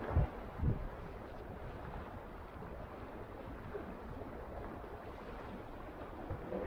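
Wind rumbling on the microphone over the steady wash of the sea against the rocks, with two low thumps about half a second apart near the start.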